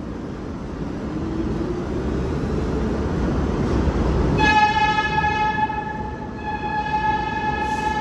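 Subway train rumbling past on the far track, growing louder over the first half. About halfway in its horn sounds, a long blast that weakens briefly and then swells again near the end.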